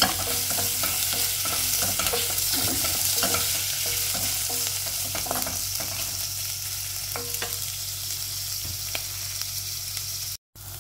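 Sliced chicken balls, garlic and onions sizzling in hot oil in a stainless steel pot, with a wooden spatula scraping and knocking against the pot as they are stirred. The stirring strokes thin out in the last few seconds while the sizzle goes on.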